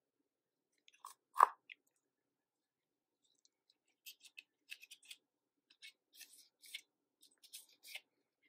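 Handling noise from nitrile-gloved hands working a plastic tray of transmission fluid and an aluminium transmission case: one sharp click about a second and a half in, then a run of small crackling clicks and rustles from about four seconds in.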